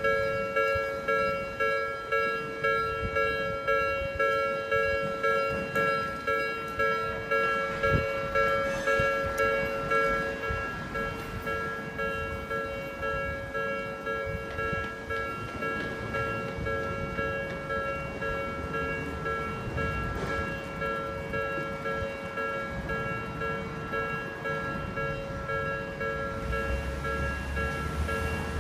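Japanese railroad crossing warning bell ringing its repeated electronic "kan-kan" at about one and a half strikes a second, as an Odakyu Line train runs through the crossing with a low rumble that builds from about ten seconds in.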